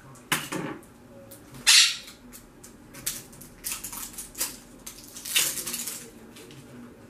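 Crinkling plastic wrapper and handled plastic toy capsule as a blind-bag toy ball is opened by hand, in several short irregular rustling bursts, the loudest just under two seconds in.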